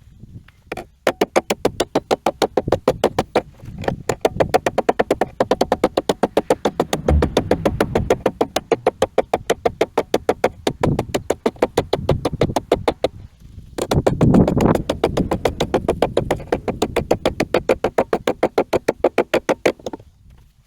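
Electronic background music with a fast, steady beat of about seven pulses a second and a brief break about two-thirds of the way through.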